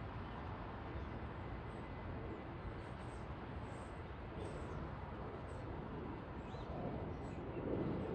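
Steady low rumble and hiss of airfield background noise, swelling a little near the end, with a few faint high chirps of small birds.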